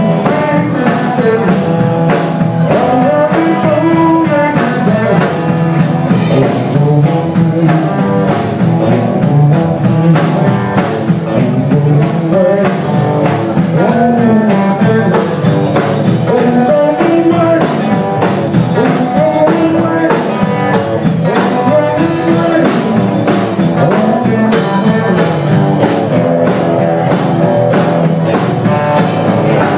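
Live band playing amplified music: electric guitar, electric bass and a Tama drum kit, steady and loud throughout.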